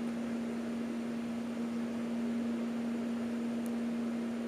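A steady low electrical hum with a faint background hiss, holding one pitch throughout, and a tiny tick about three and a half seconds in.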